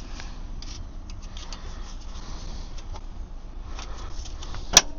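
Light metallic clicks and taps of flywheel bolts being handled one after another, with one sharp metal click near the end.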